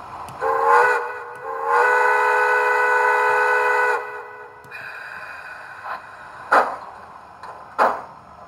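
Model steam locomotive's Tsunami 2 sound decoder playing a chime steam whistle through its onboard speaker: a short blast, then a long blast of about two seconds. Near the end come two slow exhaust chuffs as the locomotive starts to move.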